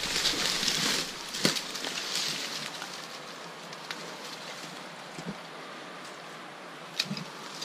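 Dry brush and twigs rustling and crackling as a hand pushes into them, with a sharp snap about a second and a half in and another near the end, over a steady hiss.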